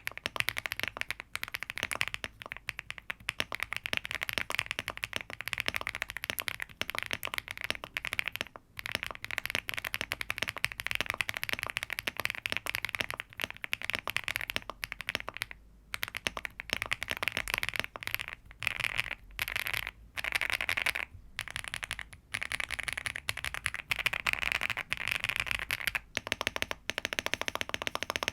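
Fast typing on a Rainy75 mechanical keyboard with HMX Catmint switches, an FR4 plate, full foam and PBT dye-sub keycaps: a dense, continuous run of keystroke clacks broken by a few short pauses, mostly past the middle.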